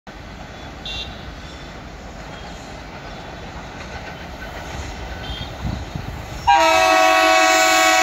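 Horn of an approaching pair of ALCO WDM-3A diesel locomotives, one long steady blast that starts abruptly about six and a half seconds in. Before it, a low rumble of the distant train.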